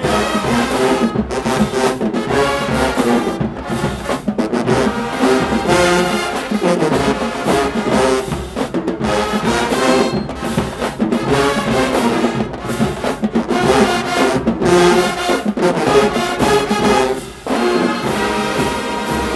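HBCU-style marching band brass section playing loud, punchy phrases, with trombones and trumpets to the fore and short breaks between phrases.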